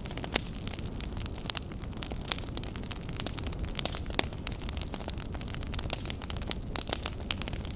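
Campfire burning with a steady low rush and frequent sharp crackles and pops at irregular intervals, a few louder pops standing out.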